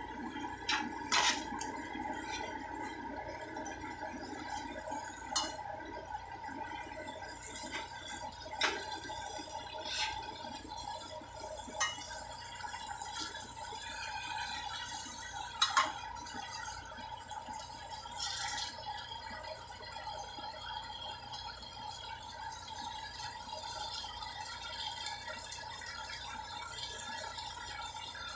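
Broccoli sizzling steadily in oil in a saucepan while it is stirred with a metal spoon, with several sharp clinks as the spoon knocks against the pan.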